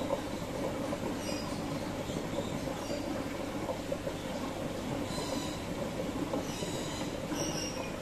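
Aquarium water running and bubbling steadily, with a few short high bird chirps over it every second or two.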